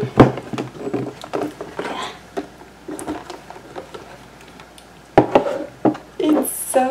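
Cardboard stethoscope box being handled and opened, its lid lifted off: rustling and scraping with a few sharp taps and knocks, the loudest just after the start and twice about five seconds in.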